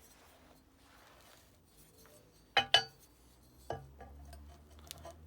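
Steel pieces clinking and knocking together: two sharp ringing clinks in quick succession about two and a half seconds in, then a softer knock about a second later.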